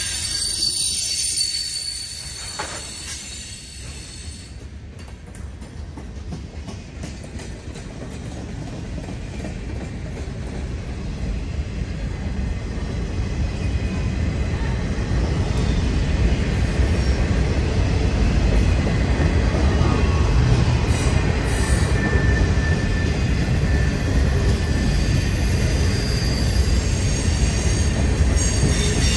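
Freight cars of a passing train rolling by: a steady rumble of wheels on rail with high-pitched wheel squeal, quieter a few seconds in, then building louder and staying loud through the second half.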